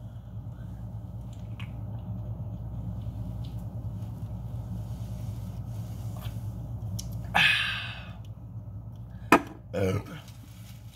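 A man swigging from a tall can of beer, swallowing for several seconds, then a breathy exhale about seven seconds in and a sharp knock of the can being set down near the end.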